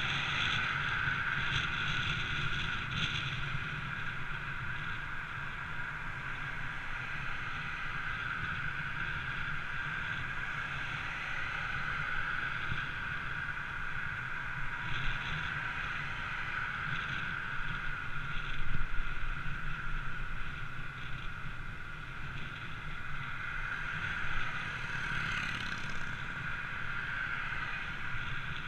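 Steady wind and road noise from riding along a road, with a brief louder swell about 19 seconds in.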